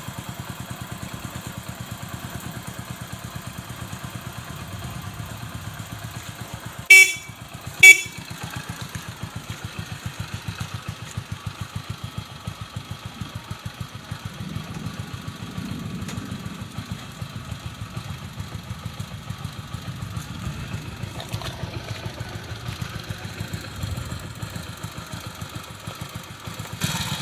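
Restored Hero CD Deluxe's small single-cylinder four-stroke engine idling with an even, steady beat. Its electric horn is tooted twice, two short loud beeps about a second apart, about seven seconds in.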